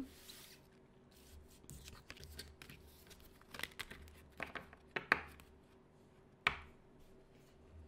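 Tarot cards being gathered up off a wooden table and handled: scattered soft taps and slides of card stock, the sharpest late on.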